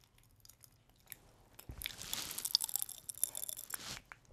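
A person chewing and crunching a cola-flavoured candy close to the microphone; the crunching starts about a second and a half in and stops shortly before the end.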